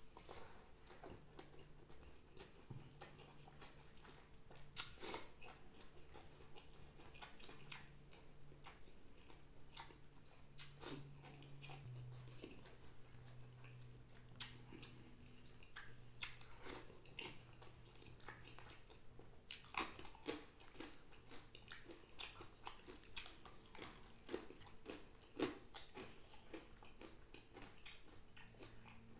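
Close-miked eating sounds: a man chewing mouthfuls of rice from a hand-eaten meal, with many small wet mouth clicks and smacks. One click about two-thirds of the way through is louder than the rest.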